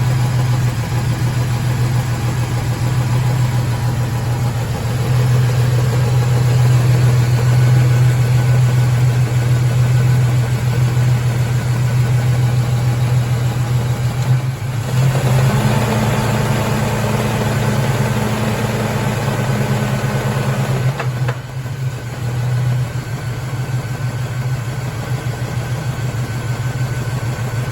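4.3-litre Vortec V6 truck engine idling steadily. About halfway through, its speed steps up for roughly six seconds, then drops back to idle.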